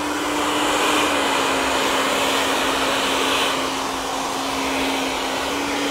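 Two handheld hair dryers running at once: a steady rush of blown air with an even motor hum underneath.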